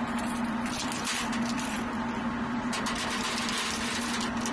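Steady low mechanical hum, with light metallic clinks and rattles as belted machine-gun cartridges are handled in a metal ammunition can.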